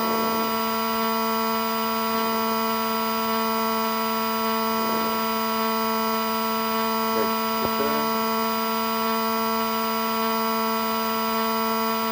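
Cessna 150's four-cylinder Continental O-200 engine and propeller running steadily at low taxi power: one constant droning hum at an even pitch.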